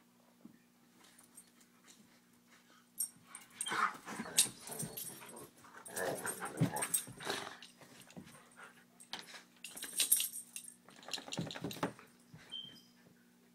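Wolfdogs making play noises while they romp, in several short bouts that start about three seconds in.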